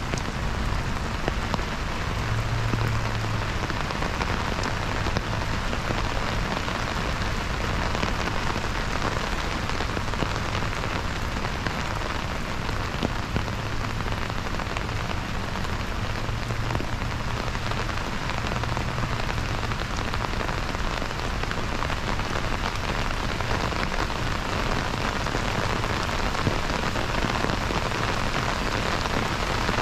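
Heavy rain falling steadily on a flooded lake, a dense even hiss of drops striking the water, with a low rumble coming and going underneath.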